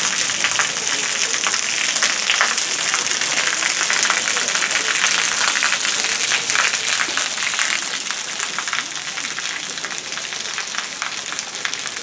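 Small waterfall: a thin stream of water pouring from a spout in a rock face and splashing onto stone below, a steady spattering hiss that eases somewhat after about eight seconds.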